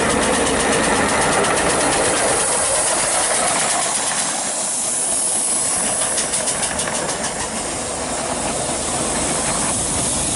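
Miniature steam locomotive chuffing past: quick, even exhaust beats over a steady hiss of steam.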